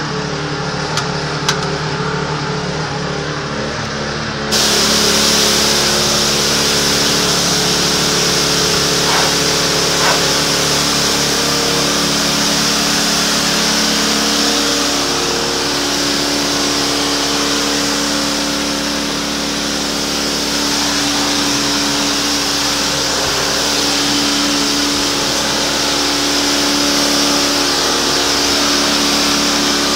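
Pressure washer running with a steady motor drone; about four and a half seconds in the trigger opens and a loud hiss of high-pressure spray against concrete starts and runs on.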